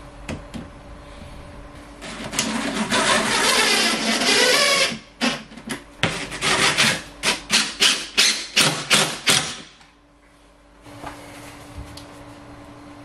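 Cordless drill driving screws. It runs continuously for about three seconds, then about ten short trigger bursts follow at roughly two to three a second before it stops.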